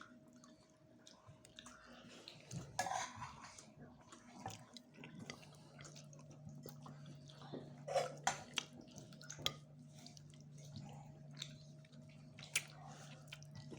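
Faint scattered clicks and taps of tableware and utensils during a meal, with a low steady hum coming in about five seconds in.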